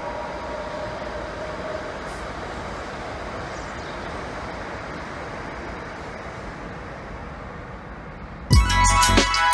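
Electric passenger train running across a steel truss railway bridge: a steady noise, with a faint whine that fades in the first second. Music with a beat cuts in suddenly near the end.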